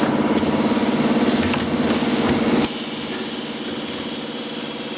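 Sugar packaging machine running with a steady mechanical hum and a few clicks; about two and a half seconds in the low rumble drops and a steady hiss starts.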